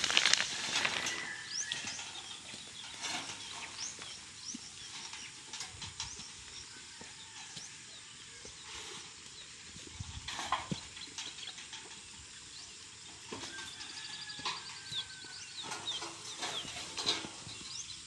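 Small birds chirping over rice-field ambience, with fowl calls mixed in and scattered knocks and rustles.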